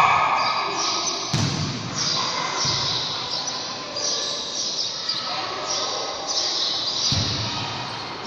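House sparrow fledgling chirping again and again in short high calls, with a ball thudding on the court floor a few times, all echoing in a large hall.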